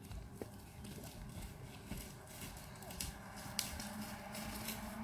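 A heavy draught horse's hooves on turf as it moves around on a lunge line: irregular soft thuds and clicks over a steady low hum.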